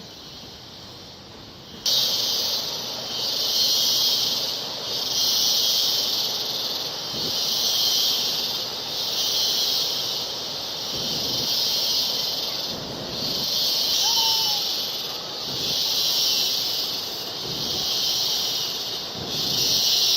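Loud, high insect chorus, swelling and fading about once a second, that starts abruptly about two seconds in. A short falling whistle sounds briefly near the middle.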